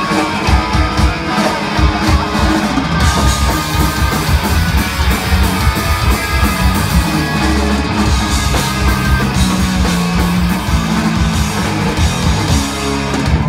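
Punk rock band playing live at full volume: distorted electric guitars, bass and a drum kit with cymbals crashing. The music stops sharply right at the end as the song finishes.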